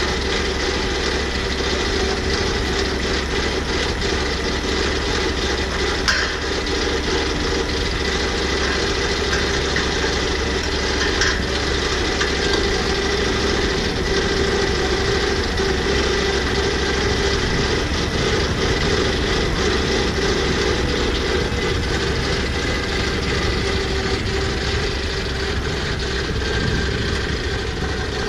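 Portable swing-blade sawmill's petrol engine running steadily, with a couple of brief knocks about six and eleven seconds in.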